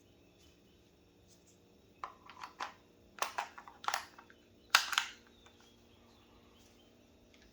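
Scattered clicks and knocks of a magazine being changed on an Umarex HDR 68 marker, starting about two seconds in; the sharpest knock comes near the fifth second.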